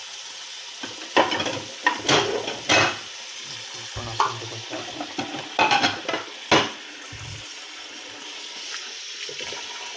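Freshly gutted trout being rinsed under running water. A steady rush of water with several sudden splashing, handling bursts, about a second in and again around six seconds in.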